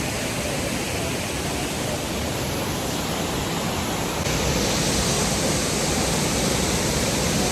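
Steady rush of a waterfall's falling water, growing a little louder and brighter about four seconds in.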